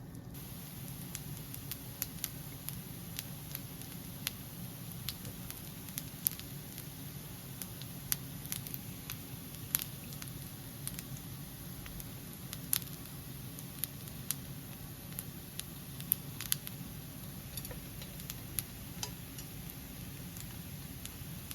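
Bibimbap sizzling on a hot plate: a steady hiss with scattered pops and crackles.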